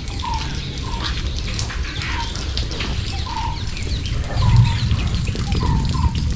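Outdoor ambience of short, repeated bird calls, a couple each second, with sharp high chirps, over a steady low rumble.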